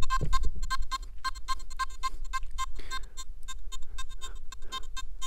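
Nokta Makro Simplex Plus metal detector beeping as a 1-gram 585 gold cross is passed over its search coil: a run of short, mid-pitched beeps, a few a second. This is its target response to small gold, reading VDI 18. Low wind rumble on the microphone underneath.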